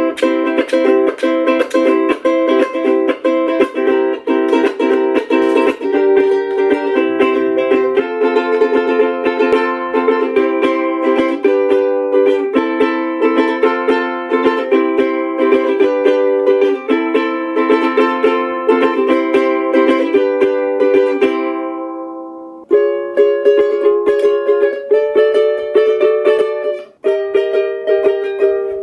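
Flight Travel soprano ukulele with a linden top, strummed in a steady rhythm through a chord progression. The chords change every second or so. About three-quarters of the way through, one chord is left to ring and fade briefly before the strumming starts again.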